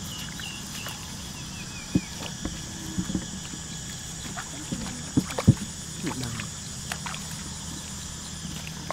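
Bare feet wading and splashing through shallow muddy water in a flooded grassy field, with a few short sharp splashes, the loudest two a little past the middle.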